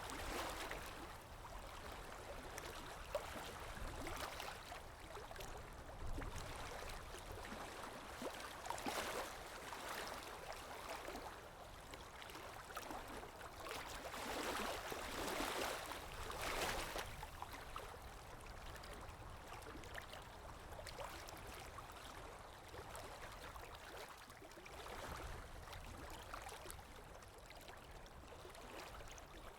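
Water lapping gently against a shore, with wind, in slow swells that rise and fall; the loudest swells come about nine seconds in and again around fifteen seconds.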